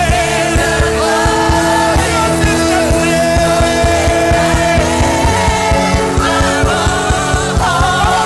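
Gospel worship band playing with sung vocals: held, wavering singing over sustained keyboard-like chords, with an even drum and bass pulse.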